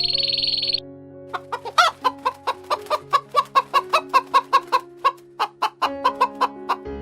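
Chicken clucking in a rapid run of short clucks, about five a second, with a brief pause a little after five seconds in, over soft background music. A short buzzy trill ends just under a second in.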